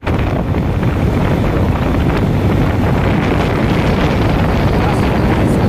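Steady wind noise buffeting the microphone on a moving motorbike, with the bike's engine and road noise mixed in underneath.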